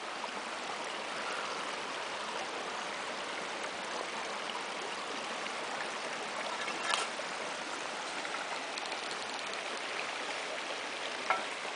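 Small freestone stream running over rocks: a steady babble of shallow water through riffles and pools, with a couple of brief taps partway through.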